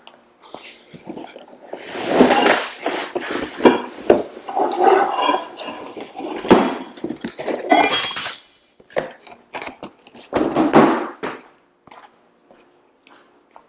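Parts of a garage door opener kit being unpacked and handled: metal rail pieces and bagged hardware clink and knock as they are set down on a concrete floor, with cardboard box handling in between. The sounds run from about two seconds in until about eleven seconds in, with a bright metallic clink near the eighth second.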